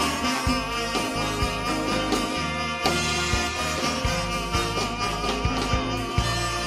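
A live big band playing an instrumental passage, with no lead vocal: a horn section of saxophones, trumpets and trombones, electric guitars, drum kit and congas.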